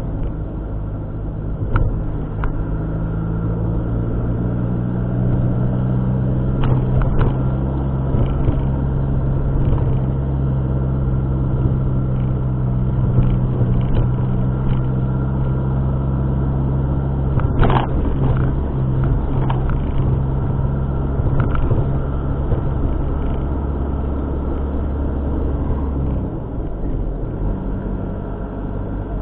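A car being driven, with steady engine and road noise. The engine note rises a few seconds in and drops near the end, with a few short knocks, the loudest about eighteen seconds in.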